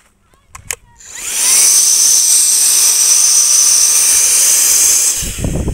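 Small handheld electric SUP inflation pump switched on with a click about a second in. It spins up with a rising whine, runs with a steady high-pitched whir, and shuts off near the end.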